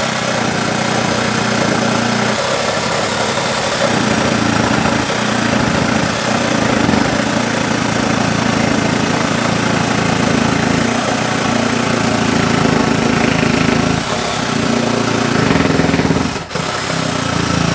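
Ryobi P516 cordless reciprocating saw cutting through thick, hard laminated plywood, the blade chattering steadily in the wood. Near the end it stops for a moment and then starts again.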